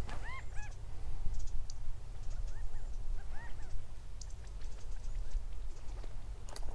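Small birds calling in short, arched chirps: a quick run of them at the start, then a few more singly. There are faint high ticks between the calls.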